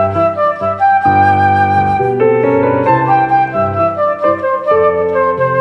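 Silver concert flute playing a legato pop melody, notes changing every fraction of a second, over a piano accompaniment that sounds lower sustained chords.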